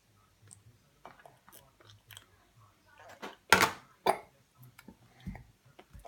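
Hiccups: two sharp, loud hics about half a second apart a little past halfway, with a weaker one near the end, after a stretch of faint small clicks and mouth sounds.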